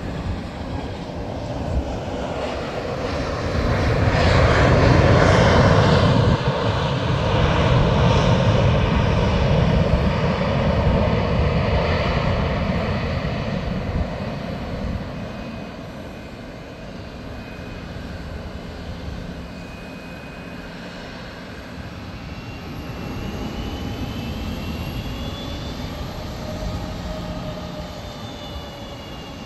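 Boeing 757 jet engines at taxi power: a steady rumble that swells for several seconds, then fades. Toward the end a thinner jet whine comes in, sliding up and down in pitch.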